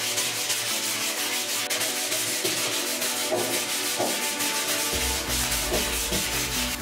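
Sandpaper rubbed by hand in quick back-and-forth strokes along a wooden axe handle: a dense scratchy sanding sound.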